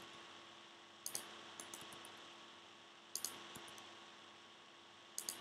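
A few faint, short clicks from working the computer, in pairs at about one second, three seconds and near the end, over a steady low hum.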